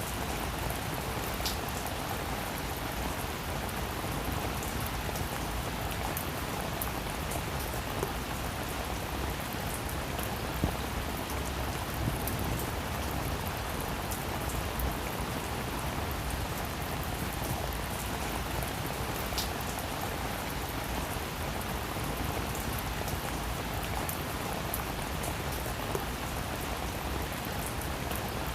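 Steady rain falling on a roof: an even hiss with sharp ticks of single drops hitting now and then.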